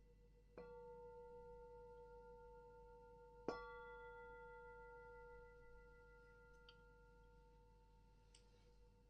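A singing bowl struck twice, about half a second in and again, louder, about three and a half seconds in, each time ringing on with several overlapping tones that slowly fade.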